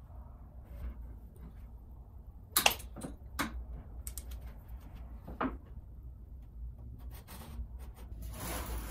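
Sharp snips and clicks of end cutters trimming the overhanging edge banding at the corner of a panel. The loudest is a cluster of snaps about two and a half seconds in, and there is another about five and a half seconds in, over a low steady hum.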